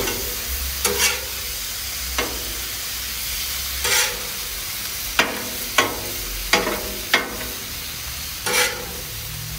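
Calf liver and onions sizzling on a Blackstone flat-top griddle, with a steady hiss. A metal spatula scrapes and clacks on the steel plate about ten times as the onions are pushed and turned.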